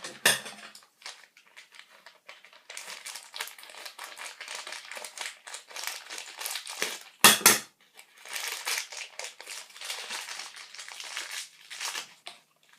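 Packaging being crinkled and torn open by hand as a pair of bar ends is unwrapped: irregular rustling and crackling, with one loud sharp crackle about halfway through.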